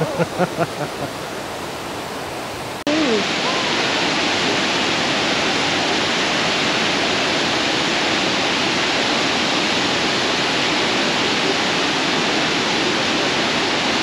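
Steady rush of water from Kravica waterfall. About three seconds in it jumps abruptly to a louder, fuller rush that then holds steady.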